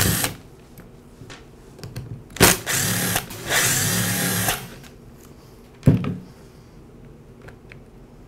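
Cordless drill-driver running in short bursts about two and a half to four and a half seconds in, backing out the screws that hold the two halves of a string trimmer's plastic handle together. A sharp knock comes about six seconds in.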